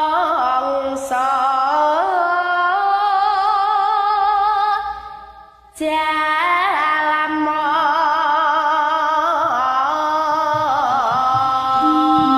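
A young girl singing a Javanese gendhing in the sinden style, with held notes, vibrato and ornamented slides between pitches. She stops for a breath about five seconds in, then carries on.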